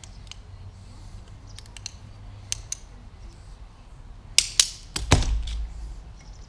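Small parts of a pressure washer trigger gun being handled and fitted: scattered light clicks and taps of hard plastic and metal, with a louder knock and short rattle about five seconds in.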